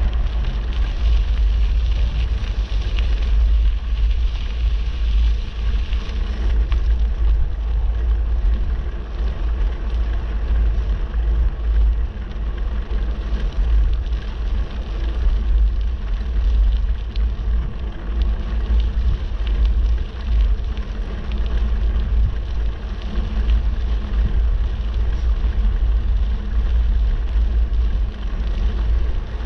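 Wind buffeting the microphone of a camera on a moving bicycle: a steady, heavy low rumble with a lighter hiss over it.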